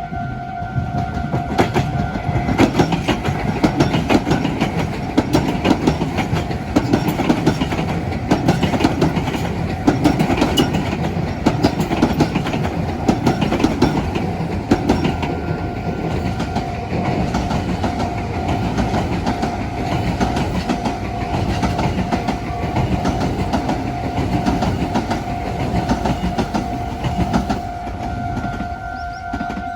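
A train passing over a Japanese level crossing, its wheels clacking steadily over the rail joints, while the crossing's warning bell keeps ringing underneath. The train noise starts about a second in and dies away near the end, leaving the bell.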